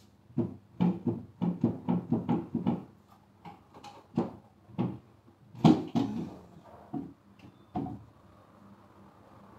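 Wooden knocks from board panels inside a box bed's storage compartment being fitted into place. First comes a quick run of about three knocks a second, then several scattered single knocks; the loudest falls about six seconds in.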